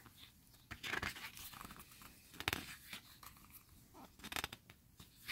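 Pages of an album photo book being turned by hand: a few short rustles and flaps of thick printed paper.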